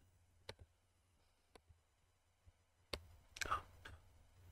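A few faint, irregular computer mouse clicks over quiet room tone, with a quick cluster of clicks about three and a half seconds in.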